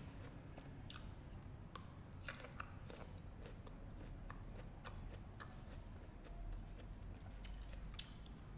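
Fresh fruit being bitten and chewed: irregular crunching clicks and bites.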